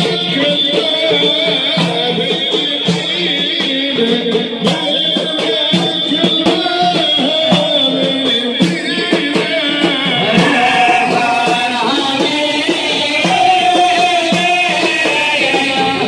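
Sufi hadra ritual music: a group of men chanting together in unison, with hand drums beating under the chant.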